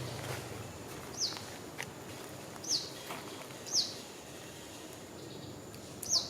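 A bird calling: four short, high chirps, each falling quickly in pitch, spaced unevenly over a few seconds, with a faint outdoor background.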